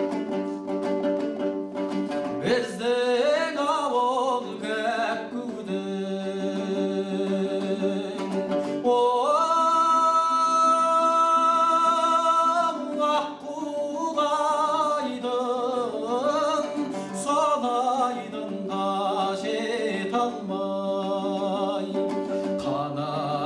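Kazakh folk song sung to dombra accompaniment. The plucked dombra strings sound throughout, a voice comes in about two and a half seconds in, and the voice holds one long note around the middle.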